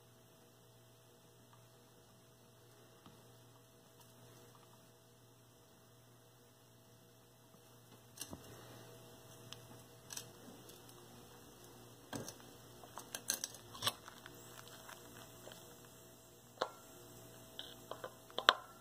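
A faint steady hum, then from about eight seconds in a run of light clicks and small knocks as a torch head and hand tools are handled on a workbench, the loudest near the end.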